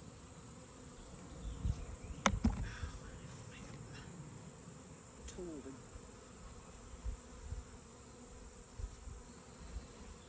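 Honeybees buzzing faintly and steadily around an open beehive, with a sharp click or knock about two seconds in.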